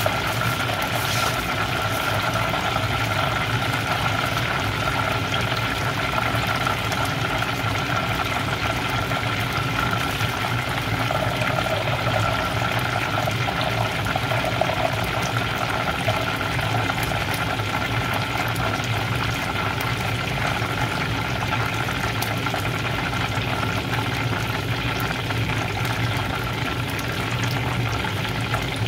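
Chicken frying in hot oil in a pan under a mesh splatter screen: a steady sizzling, with a constant low hum and a thin steady whine underneath.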